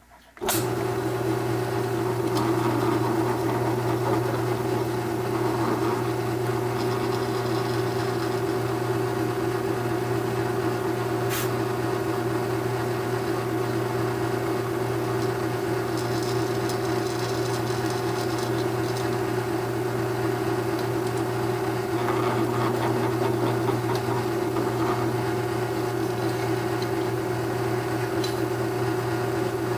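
Benchtop drill press motor starting up and running steadily with an even hum while the bit drills part way into metal hinge holes through a self-centering guide sleeve; a brighter cutting hiss rises over the hum a few times.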